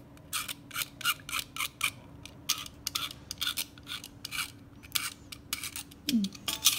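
Craft knife blade scraping dried glue residue off a black plastic model-kit part, in quick short strokes, about three a second.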